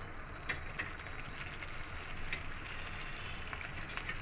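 Thick masala gravy simmering in a kadai: a steady bubbling hiss with scattered small pops.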